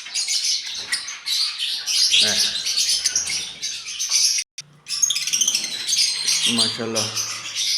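Many small aviary birds chirping and twittering at once, a dense high-pitched chatter. The sound cuts out completely for a moment about halfway through. A man's voice comes in briefly near the end.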